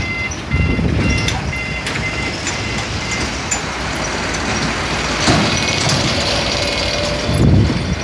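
Wind buffeting the microphone in gusts, with a dump truck approaching on the road over the last few seconds and passing close by at the end.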